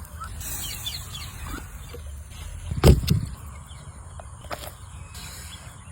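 Chickens clucking, with one loud, short sound about three seconds in.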